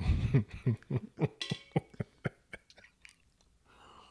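Close-miked mouth sounds: a quick run of short, soft pulses and clicks, then a slurping sip of hot coffee from a mug near the end.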